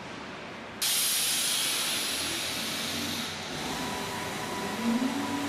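Mecal MC 309 Nike CNC profile machining centre: a sudden loud hiss of air about a second in, easing off after a couple of seconds. Near the end a motor whine rises briefly and then holds steady as the spindle runs.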